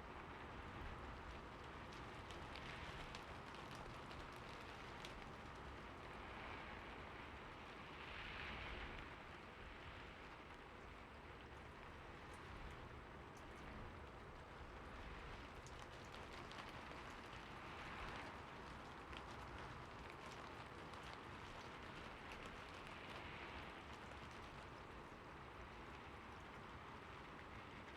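Steady rain falling, a continuous hiss with scattered drops ticking. The rain swells a little twice, about a third of the way in and again past halfway.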